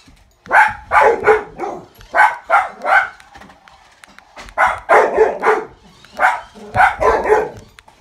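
Dog barking repeatedly in short, loud barks: a run of about seven, a pause of about a second around the middle, then another run of about seven.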